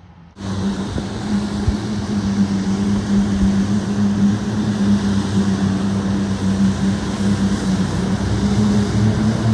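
A small boat motor running steadily at one pitch, cutting in abruptly about half a second in.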